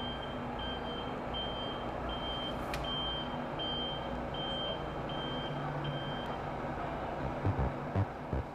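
A heavy vehicle's reversing alarm beeping at an even pace, a little over once a second, about nine times over a steady low engine rumble, stopping about six seconds in. Near the end, low thumps of a music beat come in.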